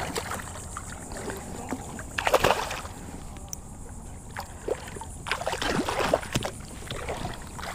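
Hooked speckled sea trout thrashing and splashing at the water's surface, in short bursts about two seconds in and again around five to six seconds, over a steady wash of shallow water.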